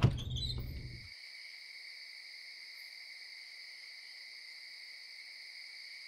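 Night-time insect chorus: a steady, faint chirring in a few high, even pitches, held without a break. A music track dies away in the first second.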